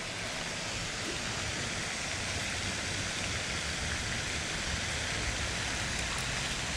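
Steady rushing hiss of splashing water from the pond's spray fountains.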